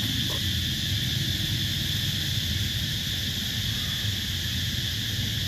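Insects droning steadily outdoors: a high, even buzz that holds without a break, over a low rumble.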